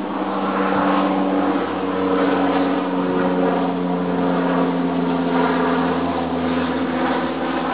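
A motor's steady drone: a low, pitched hum that swells about a second in, then holds with its pitch drifting slowly.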